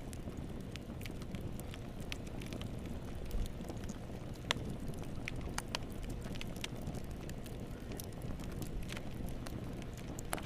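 Wood fire burning in a fireplace: a steady low rumble of flame with scattered sharp crackles and pops, one louder pop about halfway through.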